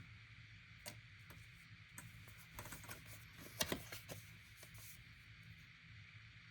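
Faint, scattered clicks and light taps of Pokémon trading cards being handled and moved to the next card, over a low steady hum.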